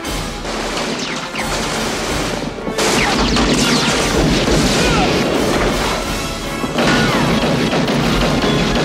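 Film action soundtrack: loud, dense crashing noise mixed with a music score, getting markedly louder about three seconds in.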